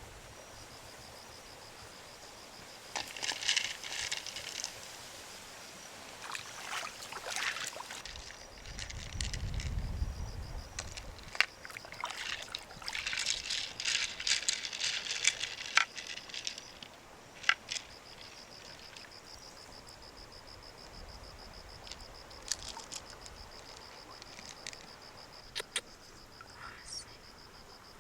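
An insect trilling steadily in a high, fast-pulsing tone, broken off for a stretch in the middle, with scattered sharp clicks and short bursts of scraping between.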